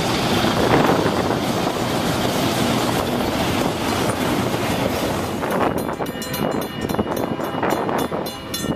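Double-stack freight train rolling past at close range, its wheels and cars making a loud, steady rumble and clatter on the rails. About five and a half seconds in the noise thins out as the last cars go by, leaving a run of sharp clicks.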